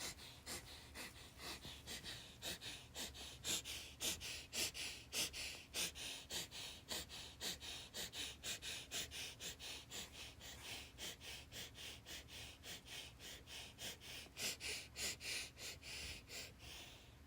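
A person breathing hard in and out in a quick, even rhythm, roughly three to four short breaths a second, used as a beat.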